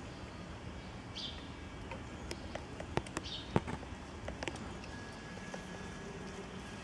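A cat eating from a plastic food tub: scattered sharp clicks and taps of chewing and the tub being nudged, loudest a little past the middle, over a steady outdoor background hiss.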